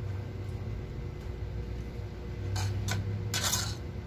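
Eating and utensil noises from a fork in a tray of black bean noodles (jjajangmyeon): two short noisy scrapes or slurps about two and a half seconds in, then a longer one of about half a second near the end, over a steady low hum.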